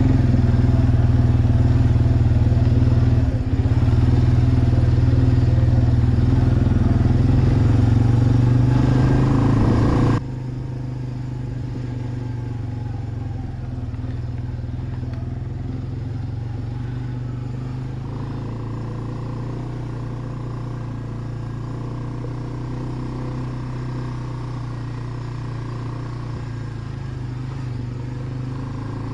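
Suzuki 400 ATV engine running under way. It is loud and steady at first; about ten seconds in it drops suddenly to a quieter, steady note.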